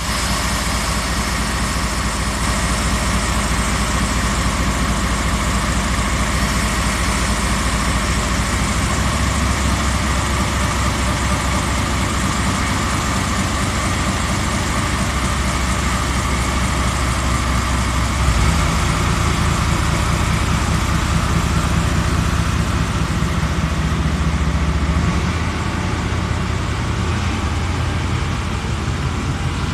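JR Kyushu DE10 1000-series diesel-hydraulic locomotive's engine running steadily at idle, then throttled up about eighteen seconds in as the train pulls away from the platform. A few seconds later the engine sound eases off and fades as the locomotive moves off and the coupled inspection car rolls past.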